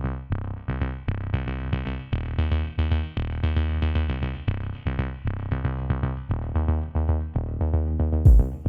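Electronic music with a synthesizer riff and drum-machine beat, its bass thumps growing heavier near the end.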